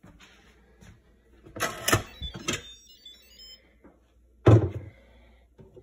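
Instant Pot lid being handled and opened: a quick run of clicks and a metallic scrape with brief ringing about two seconds in, then a loud, deep thump a little after four seconds as the lid is set down.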